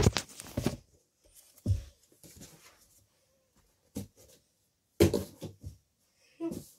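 Handling noise in a small room: a few separate thumps and rustles as the camera is picked up and set down and a box is moved about. The loudest cluster comes about five seconds in.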